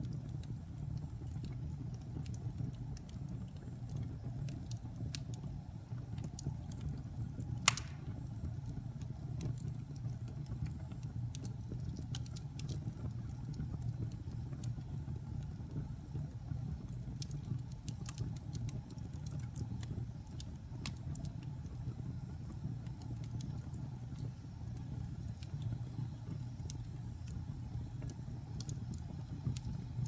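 Wood fire burning in a fireplace: a steady low rumble of flames with scattered small crackles, and one loud pop about a quarter of the way through.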